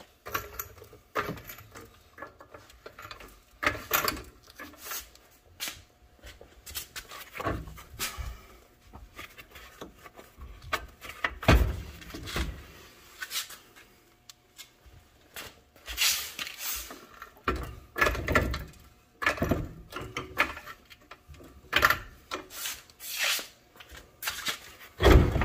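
Irregular metal clunks, knocks and scraping from hands-on work at a pickup's front suspension, as a floor jack raises the lower control arm and the lower ball joint is worked back into the steering knuckle. The louder knocks come about midway and near the end.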